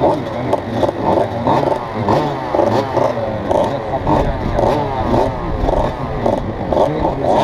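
Several enduro dirt bike engines idling and being blipped, their revs rising and falling over and over and overlapping one another.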